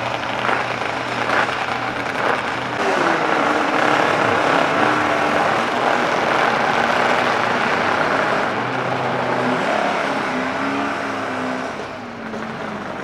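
Classic racing sidecar outfits' engines running hard at speed, their engine notes sliding down and back up as they pass and change speed.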